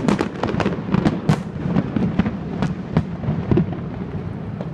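Aerial fireworks going off: a quick run of sharp cracks and bangs that thins out after about three and a half seconds, leaving only a few faint pops.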